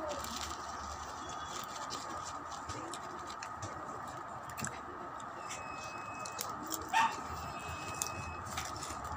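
Thin plastic bag crinkling and crackling in scattered small clicks as a hand rummages through the pork rinds inside it. About seven seconds in, a short, loud animal call rises above it.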